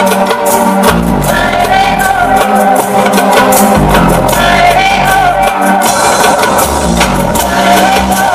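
Dance music played loud over a sonidero sound system, with a deep bass line, steady percussion and a singing voice.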